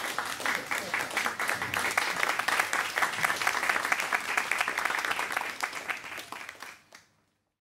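Applause: many hands clapping at once, fading out about seven seconds in.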